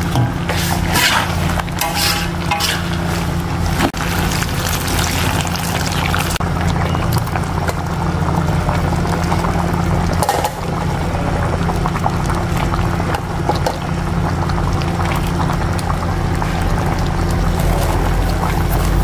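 Liquid pouring and splashing into a wok of chicken asam pedas, noisiest in the first few seconds, then the sauce bubbling over a steady low hum.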